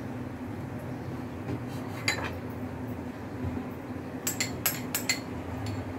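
Metal kitchen utensils clinking against a pot: one clink about two seconds in, then a quick run of several clinks near the end, over a steady low hum.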